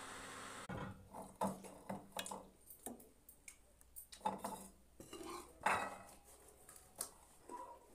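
A metal spoon clinking and scraping against a cooking pan and a steel plate as thick curry is dished out: a string of irregular knocks and scrapes, the loudest a little before six seconds in.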